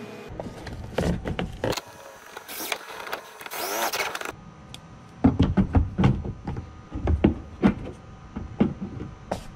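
Yellow DeWalt cordless drill driving screws into a plastic kayak, running in two short spurts about two and a half and three and a half seconds in. A run of sharp knocks and clicks follows as the strap and pliers are handled.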